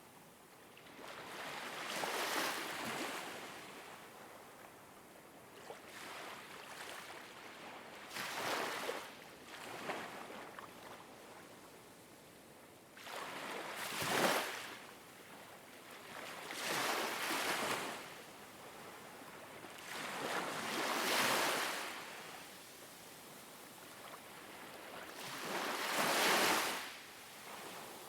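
Ocean waves washing in over a steady hiss of surf, with a swell rising and falling every four to six seconds, six in all.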